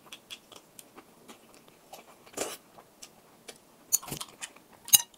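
Close-miked chewing of a mouthful of spicy noodles, with many small wet mouth clicks and one louder short mouth noise about halfway through. Near the end, chopsticks clink sharply against the glass bowl a few times.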